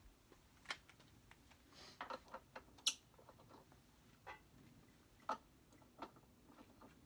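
A few faint, scattered clicks and light taps of hand work on hardware and tools, between runs of a cordless drill. The sharpest is a high click about three seconds in.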